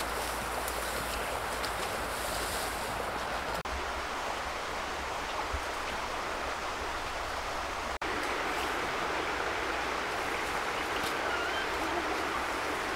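Steady, even outdoor ambience hiss, dropping out for an instant about eight seconds in.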